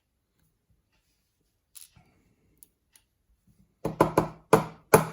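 A few faint small clicks, then a quick run of four or five sharp metallic knocks near the end: a lock cylinder being knocked to free a stuck spring during disassembly.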